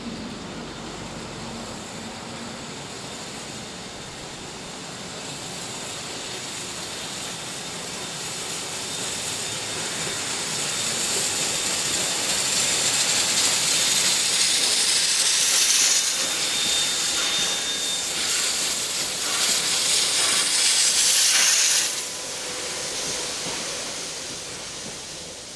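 Two steam locomotives coupled together, 5917 leading, approaching and passing close by: a steady hiss of steam with train running noise that grows louder as they near, then drops off sharply about 22 seconds in as they pass beneath.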